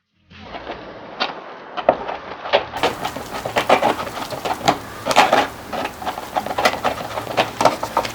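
Wooden stirring stick scraping and knocking around the inside of a small bucket while stirring epoxy resin and filler powder into a thick paste: irregular clicks and scrapes, several a second.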